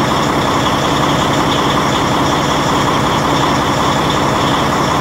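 Semi-truck diesel engine idling steadily close by.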